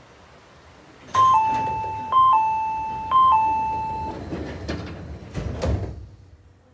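Electronic two-tone ding-dong chime in an Izukyu 8000 series train car, sounding three times, each time a higher note dropping to a lower one. It is then followed by clattering and a thud about five seconds in, typical of the doors sliding shut before departure.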